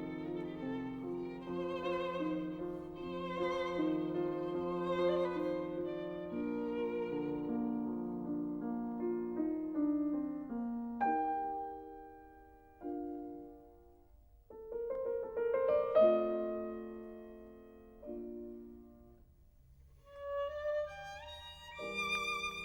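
Background music: a violin playing a slow melody with vibrato over sustained chords, thinning in the middle to a few single piano notes before the violin returns near the end.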